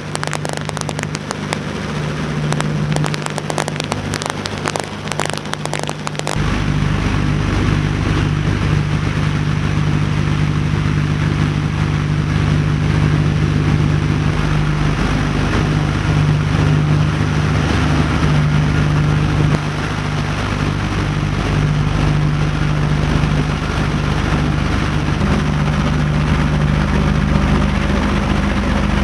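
Steady drone of a B-25 Mitchell bomber's twin radial piston engines in cruise, heard from inside the aircraft. For the first six seconds a rapid crackle rides over the drone. After that the drone turns fuller and deeper.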